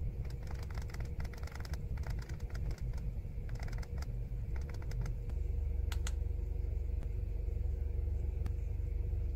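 Rapid clicking of the handheld scan tool's buttons as they are pressed to scroll through a menu, dense at first and thinning out after about five seconds. A steady low hum runs underneath.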